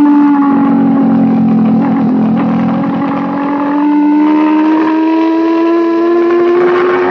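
Racing motorcycle's engine heard onboard, running at high revs as the bike leans through a corner. The note sags slightly at first, then rises steadily from about three seconds in as the rider accelerates.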